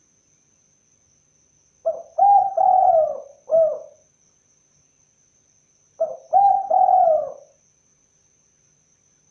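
Spotted dove (tekukur) cooing: two phrases of three or four notes each, the middle notes drawn out, about four seconds apart.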